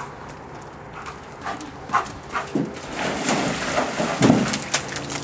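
Giant schnauzer splashing and stamping in a plastic kiddie pool of water. It starts with scattered knocks, and from about three seconds in there is a dense run of splashing with heavy paw strikes.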